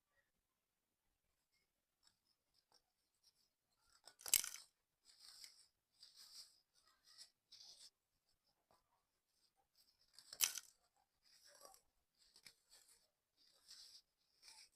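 Sand tower crumbling: a sharp crack about four seconds in and another about six seconds later, each followed by several seconds of soft, crackly crumbling.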